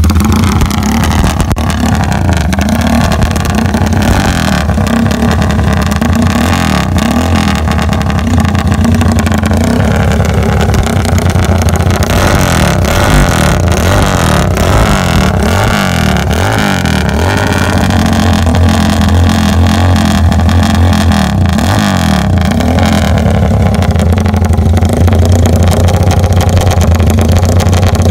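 Motorcycle engine running through a CJDW hexagonal-tip aftermarket muffler, revved up and down repeatedly so the loud exhaust note rises and falls.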